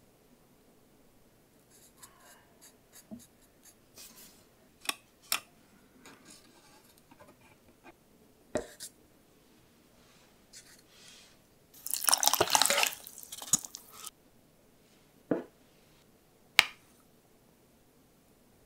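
Kitchen containers handled on a tabletop: scattered light clicks and taps, a louder rustling scrape of about two seconds past the middle, then two sharp knocks near the end.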